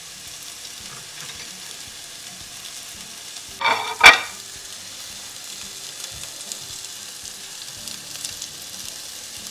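Hot oil sizzling steadily as battered cauliflower florets deep-fry on high heat in a two-handled karahi. A brief clatter and a sharp knock about four seconds in.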